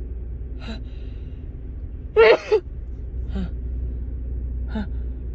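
A woman's gasping breaths as a sneeze builds: short breathy intakes, with one loud voiced 'ah' about two seconds in, from a cold-tickled nose. A steady low hum runs underneath.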